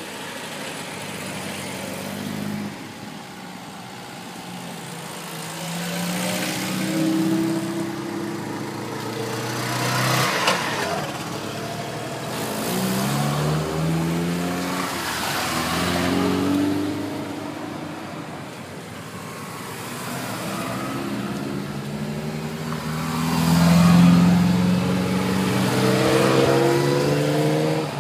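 Classic cars driving past one after another, among them a BMW 2002 about halfway through. Each engine note swells and fades as its car goes by, with the loudest pass a few seconds before the end.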